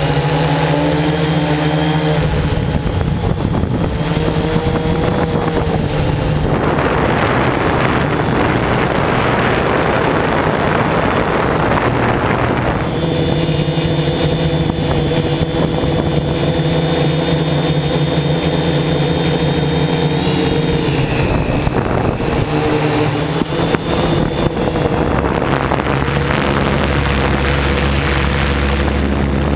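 Electric motors and propellers of a MikroKopter hexacopter running in flight, recorded by the camera mounted on it. Several steady whining tones shift in pitch now and then, and for several seconds at a time a rushing hiss takes over.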